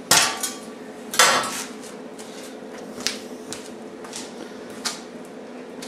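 Welded steel flat-bar ATV rack clanking against the quad's front end as it is set in place: two loud metallic clatters in the first second and a half, then a few lighter clinks.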